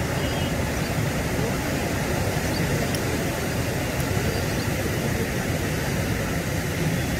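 Floodwater rushing hard in a swollen river and surging against a low bridge: a steady, unbroken rushing noise.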